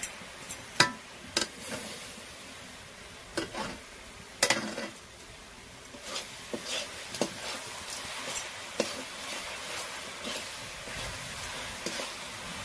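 A metal spatula stirring a sticky coconut-and-sugar filling in a metal kadai, scraping and clinking against the pan at an irregular pace over a light sizzle. The loudest scrapes come about a second in and again near the middle.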